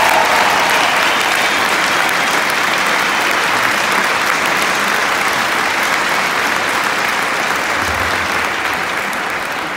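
Large arena crowd applauding steadily, slowly dying down near the end.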